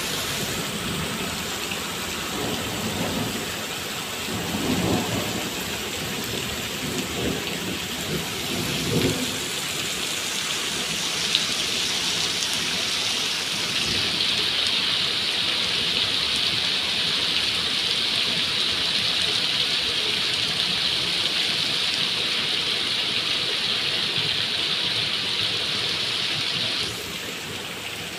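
Heavy rain pouring down onto flooded pavement, a steady hiss, with low rumbles of thunder a few seconds in and again about nine seconds in. The rain grows louder about halfway through, then drops in level near the end.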